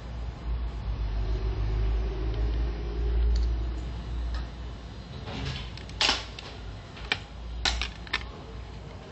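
Low rumbling handling noise, then from about five seconds in a run of sharp plastic clicks and snaps as a smartphone's plastic back cover is prised off its clips.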